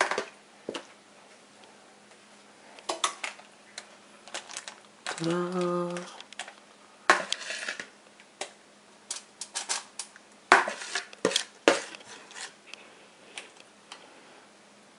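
Metal kitchen tongs clicking and clinking against a foil-lined baking tray as marinated chicken wings are laid out, in irregular short taps. A brief voice sound comes about five seconds in.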